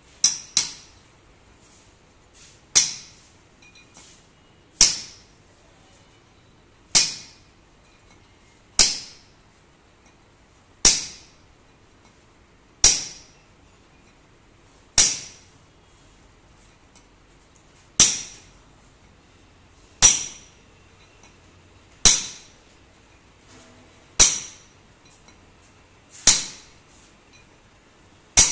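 Hand hammer striking a long steel rod set into a tractor transmission housing: sharp metallic clinks about every two seconds, each ringing briefly, with two quick blows at the start.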